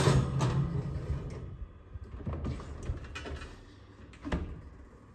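A metal bundt cake pan is set on a wire oven rack and the oven door is pushed shut: metallic clatters, then a single knock of the door closing about four seconds in. A low hum sounds during the first second or so.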